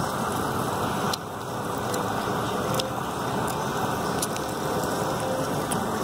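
A steady rushing, rumbling noise that drops briefly about a second in, with a few faint clicks.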